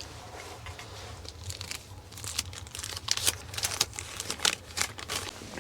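Irregular crinkling and crackling, getting busier from about a second and a half in, over a steady low hum.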